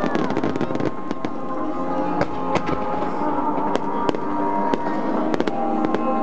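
Aerial fireworks bursting and crackling in quick, irregular succession, with music playing underneath.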